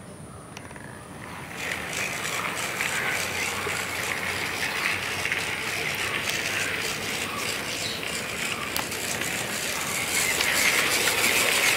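Handmade miniature 4-6-2 YP class model steam locomotive running along its track: a dense mechanical whirring rattle of its gears and running gear. It starts about one and a half seconds in and grows louder near the end.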